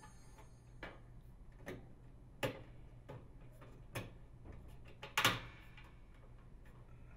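Light clicks and taps of the receptacle bracket and plastic light receptacle being handled against the bath fan's sheet-metal housing: a handful of separate knocks, the loudest a quick double knock about five seconds in.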